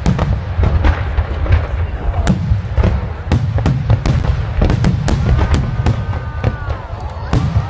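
Aerial firework shells bursting one after another: a dense run of sharp booms and crackles over a continuous low rumble.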